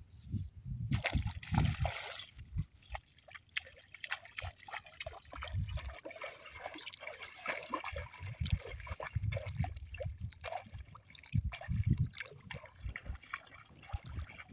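Feet wading through shallow river water, with irregular splashing and sloshing at each step and low thuds among them.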